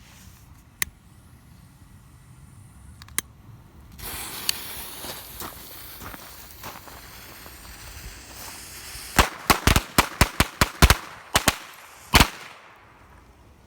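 Two sharp clicks, then a fuse hissing and sputtering for about five seconds. Then Keystone Thunder Bomb firecrackers go off in a rapid string of about a dozen sharp bangs over three seconds.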